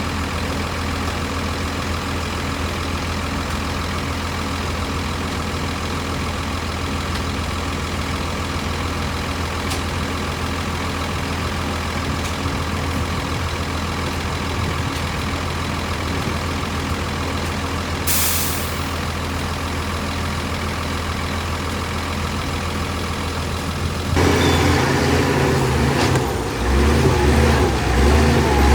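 Heavy diesel earthmoving machine engine running steadily with a low hum. A brief hiss comes about two-thirds of the way through, and near the end the engine gets louder and rougher as it is worked harder.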